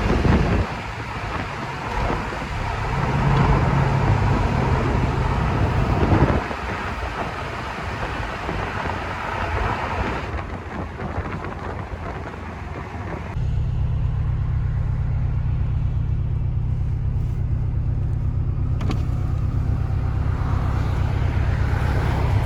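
A car on the move: tyre and road noise with a low engine rumble. About thirteen seconds in it switches abruptly to a steady, low engine drone.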